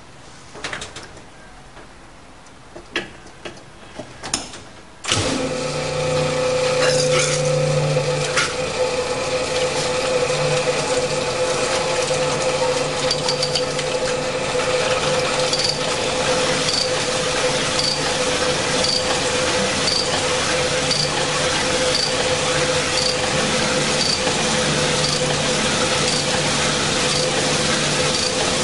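A few clicks and knocks, then about five seconds in a cylinder honing machine starts and runs steadily, its roughing stones grinding rust out of a steam engine's cylinder bore. It makes a steady hum with a light tick about once a second.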